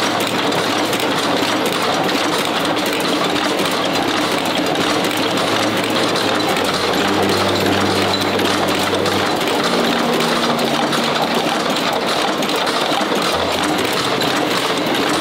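Automatic screw-making machine running at speed: a fast, steady metallic clatter as it works rivet-screw blanks.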